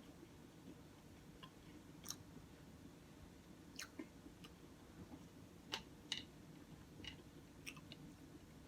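Quiet chewing of a soft bacon, egg and cheese croissant sandwich, with scattered short wet mouth clicks and smacks, the sharpest about six seconds in.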